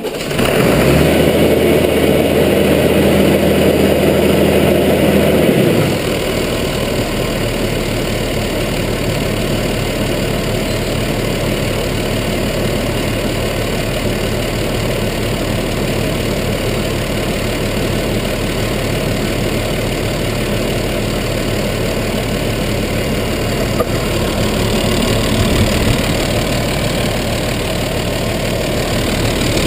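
Massey Ferguson 3125 tractor's diesel engine, just started after a cylinder head refit, running at a raised speed for about six seconds, then dropping to a steady idle.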